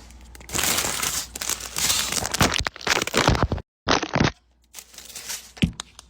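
Crinkling and crunching handling noises in the kitchen, in several loud bursts over about three seconds. A brief cut to silence follows, then one short burst and a few light clicks.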